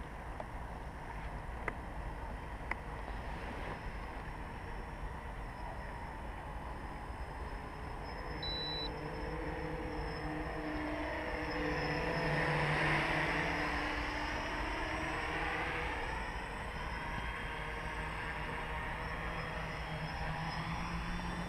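A 3D-printed tricopter's three electric motors and propellers buzzing in flight. The sound grows louder towards the middle as the craft passes near overhead, peaks, then eases off. A steady low background noise runs underneath.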